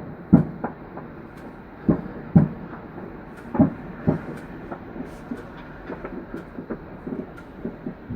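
Distant fireworks going off in a finale barrage: a run of dull bangs, often in pairs about half a second apart, with faint crackling between them.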